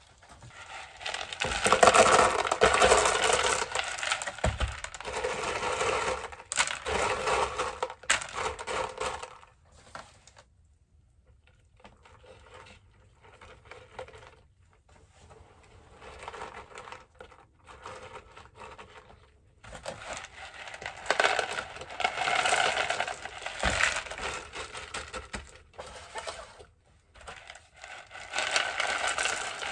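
LECA clay pebbles poured from a plastic pot into a plastic pot around a plant's roots, rattling and clattering in several long pours with a quieter stretch of scattered clicks in the middle.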